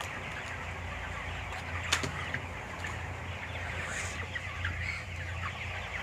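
A large flock of 27-day-old broiler chickens clucking and cheeping together over a steady low hum, with one sharp click about two seconds in.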